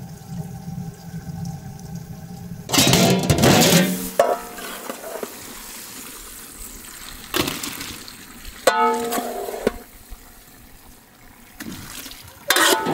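A large metal ladle scooping steaming water with tomatoes and onions from a cauldron and pouring it into an aluminium pot, in several splashing pours. The ladle strikes a pot with a ringing metal clang a little before nine seconds in.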